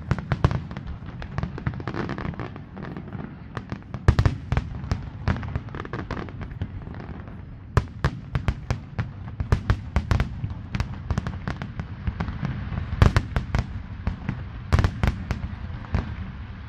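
Aerial fireworks display: a rapid, irregular barrage of bangs and crackles from shells bursting overhead, with a few louder booms, one about four seconds in and others near the end.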